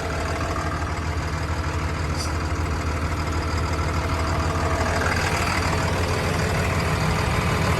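Caterpillar D6M XL crawler dozer's diesel engine idling steadily, growing a little louder from about five seconds in.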